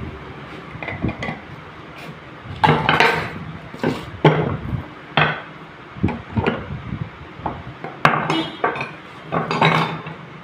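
Hand tools clinking and scraping on the metal housing of a Suzuki Cultus starter motor as it is reassembled on a workbench: an irregular run of sharp metallic clinks and knocks, starting a couple of seconds in.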